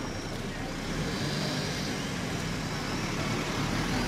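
A car passing slowly on the street, its engine and tyres making a low rumble that grows louder near the end.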